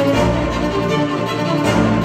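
Cinematic classical music with sustained bowed strings, violin over cello, and a deep bass note swelling in just after the start, played back through Polk Audio Reserve R200 bookshelf speakers.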